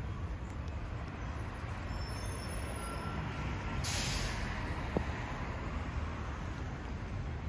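Steady low rumble of road traffic. There are faint high squeals just before a short burst of hiss about four seconds in.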